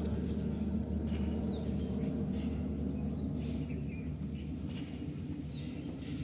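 Rural hillside ambience: small birds giving scattered short chirps over a steady low rumble.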